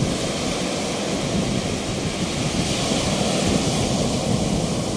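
Sea surf rushing steadily onto a beach where the waves are strong, with wind buffeting the microphone.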